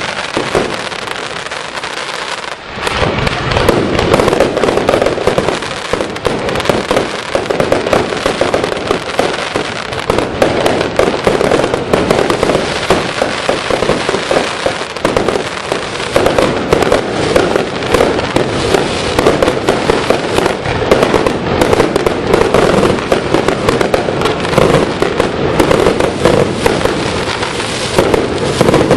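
Fireworks display going off continuously: a dense run of bangs and crackling bursts with no let-up. A short lull about two seconds in gives way to a heavier barrage.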